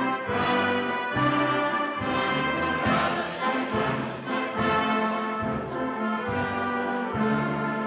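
Brass band playing in ensemble, held chords over bass notes that change in a steady rhythm.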